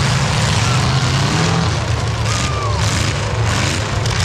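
Several demolition derby cars' engines running and revving at once, many pitches rising and falling over each other, with a thin whine that glides down about two seconds in.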